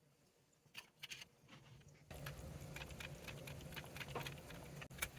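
Maine Coon cat licking and lapping the watery juices off wet cat food: faint, quick little wet clicks, a few at first and then thicker from about two seconds in.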